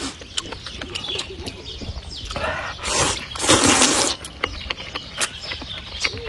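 Close-up eating sounds: wet chewing clicks and smacks, with a loud, noisy slurp of chicken soup lasting about a second, a little under three seconds in.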